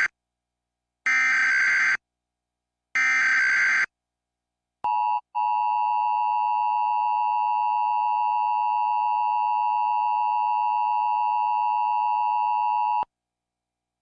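Emergency Alert System test tones. First come the screechy digital bursts of the SAME data header: the end of one, then two more, each about a second long. About five seconds in, the two-tone attention signal (853 and 960 Hz) sounds steadily for about eight seconds, with a brief dropout just after it starts, and then cuts off.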